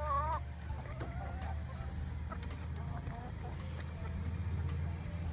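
Backyard hens clucking: a drawn-out wavering call right at the start, then a few faint short clucks. A steady low rumble runs underneath.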